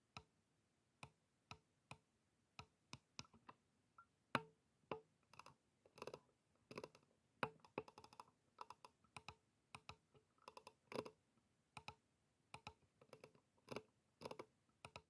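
Computer mouse buttons clicking: slow single clicks at first, then quicker runs of clicks and double clicks from about five seconds in.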